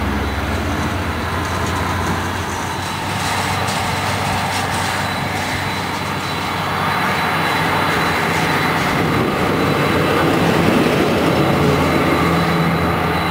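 Boeing 747 freighter's four jet engines running on the ground, a steady roar with a thin high whine over it, growing a little louder in the second half.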